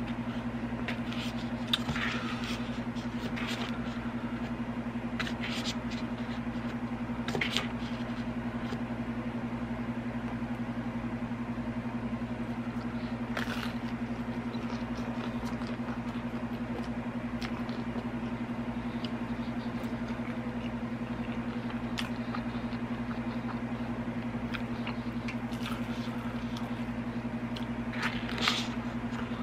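Close-up eating sounds of deep-dish pizza: bites into the slice, chewing, and pieces being dipped into a cup of ranch. A few short crackly bursts come about two seconds in, around seven seconds, in the middle and near the end, over a steady low hum.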